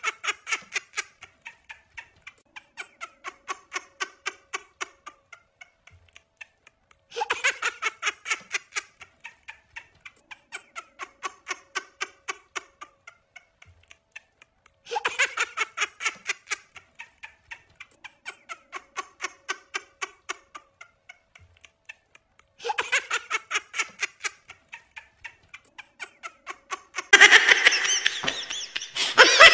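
Looped laughter sound effect: a burst of rapid laughing that trails off into quieter, evenly spaced laughs about four a second, repeating about every eight seconds. Near the end a louder, denser sound cuts in.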